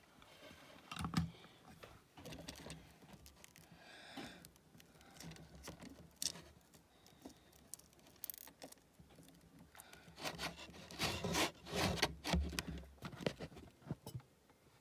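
Handling noise: scattered light clicks, rubs and scrapes as a fishing lure held in metal clips on a stand is repositioned by hand, busiest near the end. There is no steady airbrush hiss.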